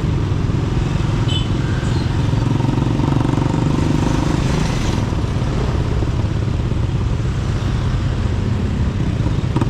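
Motorcycle taxi's engine running steadily as it rides along a road, with a slight swell in engine sound about three to five seconds in.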